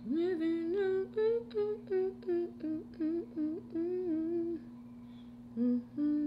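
A woman humming a tune with her mouth closed, a quick run of about a dozen notes, breaking off about four and a half seconds in and starting again near the end, over a faint steady background hum.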